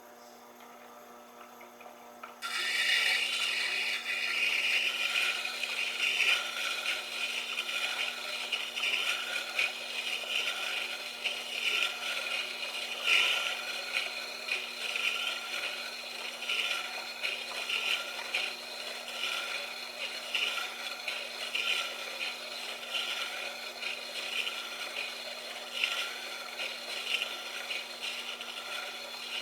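Tormek T-8 water-cooled sharpening machine running with a steady hum, and a drill bit being ground against its turning stone from about two seconds in, with a rough, uneven scraping.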